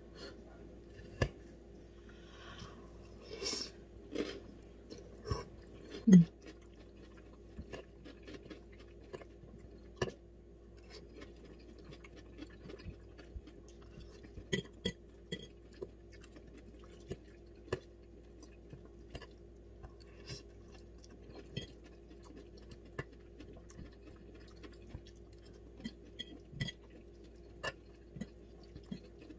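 Close-up chewing of sautéed cabbage, with a metal fork clicking and scraping against a ceramic bowl in scattered short clicks. A faint steady hum runs underneath.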